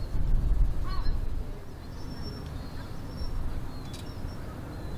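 A low, gusty rumble, loudest in the first second and a half, with a short bird call about a second in and a few faint, thin high calls near the middle.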